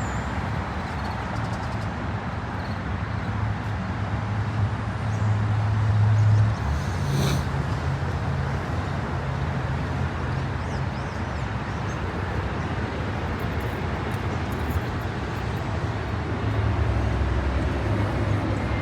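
Road traffic: a steady rush of cars on an overpass, with a low engine drone that grows louder about four seconds in and drops away after about six and a half seconds.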